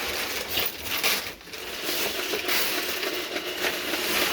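Wrapping paper tearing and crinkling as a present is unwrapped, in irregular rustling snatches with a brief pause about a second and a half in.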